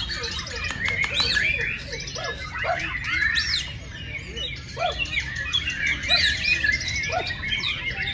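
A dense chorus of many caged songbirds chirping and whistling over one another, short rising and falling notes packed together with no break.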